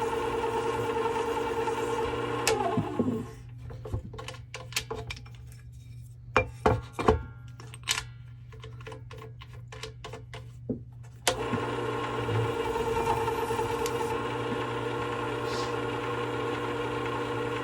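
Work Sharp WS3000 sharpener's motor running steadily, then switched off and spinning down about two and a half seconds in. Several seconds of sharp clicks and knocks follow as the machine and its platen are handled. Then the motor starts again suddenly and runs steadily.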